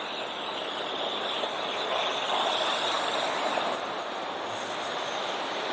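Steady outdoor background noise of distant road traffic, an even hiss with no distinct events, swelling slightly for a second or so midway.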